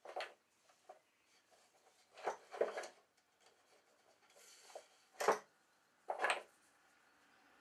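Cords pulled through the holes of a wooden plate and handled among wooden toggles in a wooden box: a series of short rubbing and scraping sounds, the loudest about five seconds in and again a second later.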